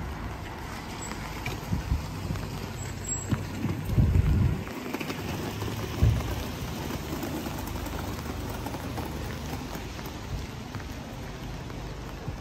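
Steady rain falling and pattering on surfaces, with a few dull low thumps about two, four and six seconds in.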